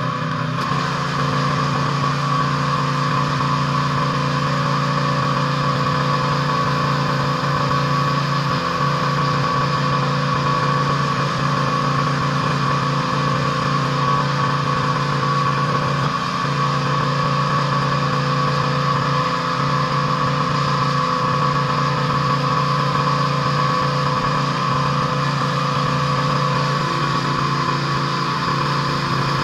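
Pressure washer running steadily on a driveway clean: a constant engine hum with a hiss of spray over it, unchanging throughout.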